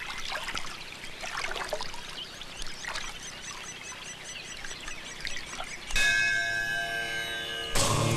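Birds chirping in quick, even succession over a soft outdoor hiss. About six seconds in, a bell strikes loudly and rings on, and a second, lower ringing tone comes in just before the end.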